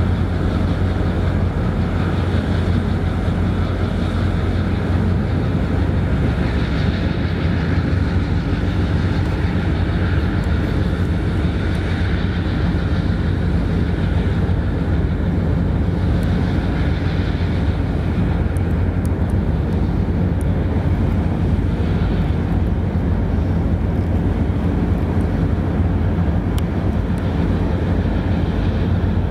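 Japan Coast Guard waterjet patrol vessel's diesel engines running steadily under heavy load as it pulls away from the quay, a deep drone mixed with the rushing of the waterjet discharge churning the water at the stern.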